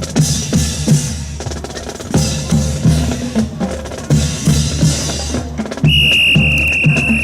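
Drum-led music with a steady beat of deep drum strokes. Near the end comes one long, shrill whistle blast.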